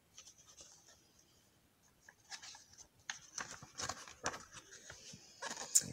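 Pages of a hardback picture book being turned and handled, giving faint, irregular paper rustling and crackling that thickens after about two seconds, with one sharper crackle just before the end.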